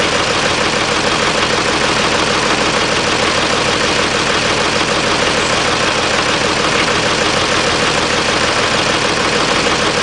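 Oliver tractor's engine idling steadily and loudly, with no change in speed.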